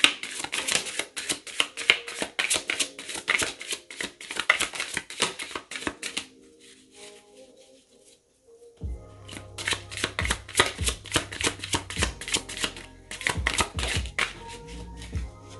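A deck of tarot cards shuffled by hand in a rapid run of crisp flicks and slaps for about six seconds, then more card handling and shuffling later on. Background music plays underneath, its bass line coming in about nine seconds in.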